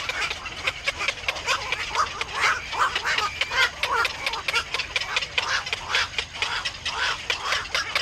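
Black-crowned night herons at the nest calling: a rapid, unbroken series of short harsh calls mixed with sharp clicks.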